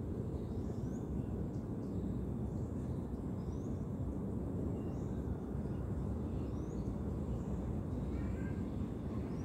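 Steady low outdoor background rumble, with faint high chirps repeating about once a second.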